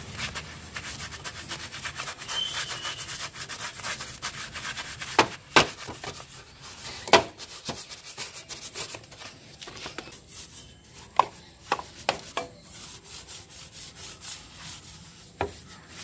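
A paintbrush loaded with toothpaste scrubbing a motorcycle's engine casing: fast rasping brush strokes, with a few sharp knocks as the brush strikes metal parts.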